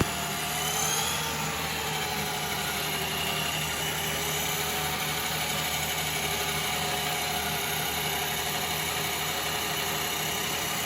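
A treadmill running with an electric remote control car driving on its belt, a steady mechanical whine. The pitch rises about a second in as the speed goes up, then holds steady.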